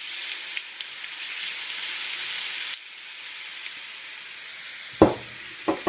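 Egg and brown rice frying in a hot pan with sesame oil, sizzling as soy sauce goes in. The sizzle drops suddenly a little under halfway through and carries on more quietly, and a few sharp knocks come near the end.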